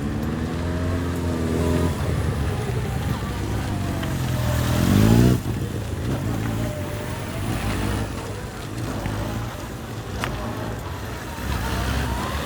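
Police motorcycle engines running during a drill-riding display. One engine revs up, rising in pitch to its loudest about five seconds in, then drops off suddenly. Quieter engine running with smaller rises follows.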